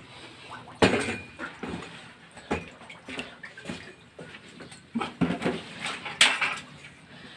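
Irregular knocks, scrapes and clatter from a person moving through a cramped tunnel while handling a phone. The loudest knocks come about a second in and again near the end.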